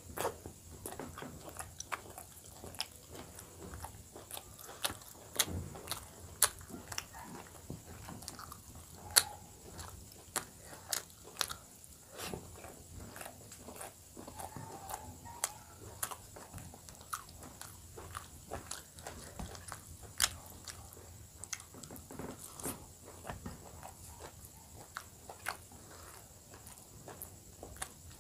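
Close-miked eating: a man chewing steamed momos dipped in chilli chutney, with frequent, irregular sharp mouth clicks and smacks.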